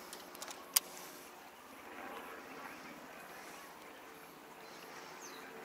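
Quiet lakeside ambience with a single sharp click about a second in.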